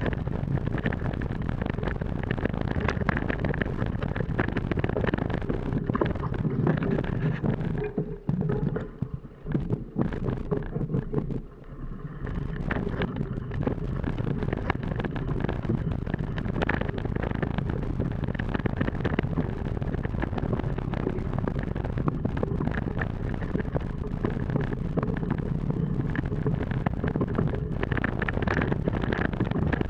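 Mountain bike riding fast down a rooty dirt forest trail: wind buffeting the bike-mounted camera's microphone over tyre rumble, with many quick knocks and rattles as the bike hits roots and bumps. The noise eases off briefly from about eight to twelve seconds in.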